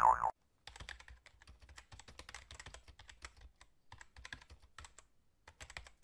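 Fast typing on a computer keyboard: a quick run of keystroke clicks with two short pauses. It opens on the end of a wobbling cartoon boing ('jelly toink') that cuts off about a third of a second in.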